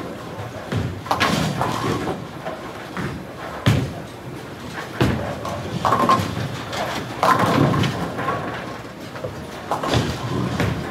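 Bowling alley din: balls striking pins with sharp crashes every second or two, some from nearby lanes, over the steady rumble of balls rolling.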